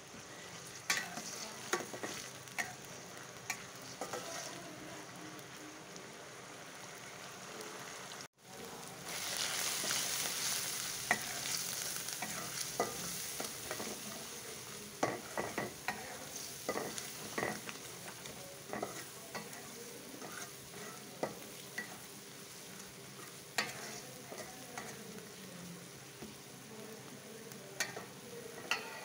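Onions and then spice paste frying in oil in a metal karahi, sizzling steadily, while a metal spatula scrapes and taps against the pan as they are stirred. The sound cuts out briefly about eight seconds in, and the sizzle comes back louder.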